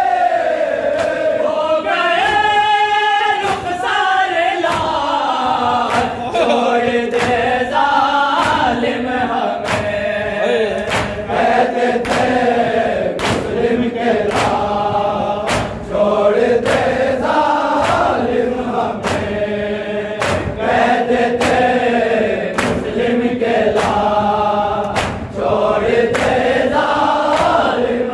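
A group of men chanting a mournful Urdu noha in unison, over a steady beat of sharp hand slaps from chest-beating (matam) in time with the recitation.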